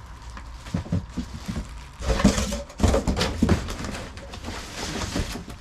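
Packaging being handled as parts are taken out of a box: a few scattered knocks, then denser rustling and knocking from about two seconds in.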